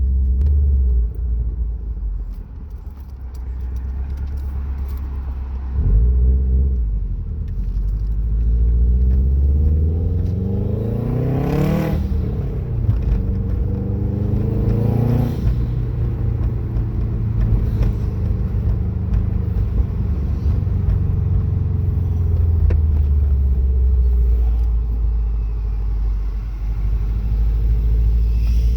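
Subaru Legacy driving, its engine revving up twice: the pitch climbs for several seconds, drops about twelve seconds in, climbs briefly again and then settles into a steady low drone.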